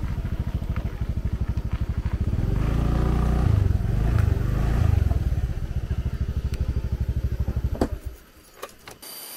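Small motorcycle engine idling with an even, rapid putter, a little louder for a couple of seconds midway, then switched off about eight seconds in, followed by a few light clicks.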